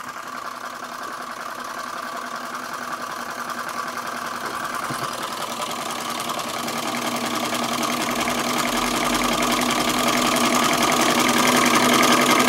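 A hundred-year-old Bing single-cylinder tinplate hot air engine running, with a fast, even mechanical clatter that grows steadily louder.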